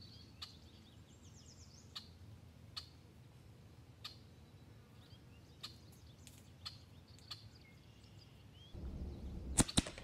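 Faint high bird chirps and scattered small ticks over a quiet yard. Near the end comes a double tap from an EDgun Leshiy PCP air rifle: two sharp shots in quick succession, a fraction of a second apart, just after a low rumble comes up.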